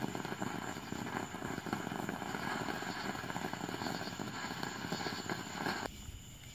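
Ground fountain firework spraying sparks with a steady hiss and crackle, which stops sharply near the end as it burns out.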